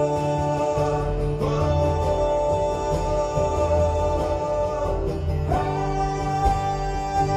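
Live acoustic guitar song with long held chords behind it, the chord changing about a second and a half in and again about five and a half seconds in.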